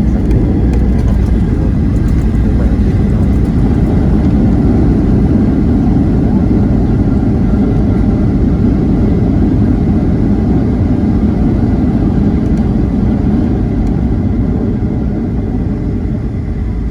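Inside a jet airliner's cabin: a loud, steady rumble of engines and airflow as the plane comes in to land, easing slightly near the end.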